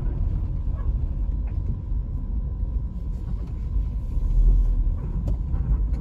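Car cabin noise while driving slowly: a steady low rumble of engine and tyres heard from inside the car, swelling briefly about four and a half seconds in.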